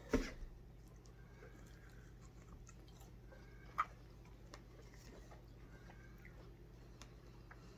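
A person biting into and chewing a soft donut, faint and close, with one sharp short sound about four seconds in as she takes a bite.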